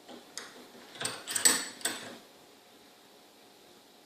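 Metal clicks and clinks from a just-picked Wilson Bohannon brass padlock and the picking tools being handled: about five sharp clicks in the first two seconds, the loudest about one and a half seconds in.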